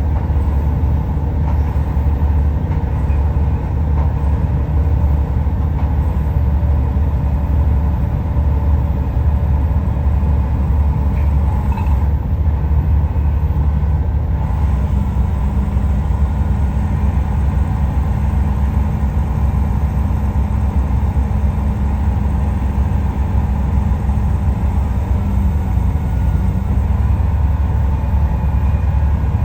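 Kobelco excavator's diesel engine running steadily with a low rumble; a slightly higher hum joins in about halfway through.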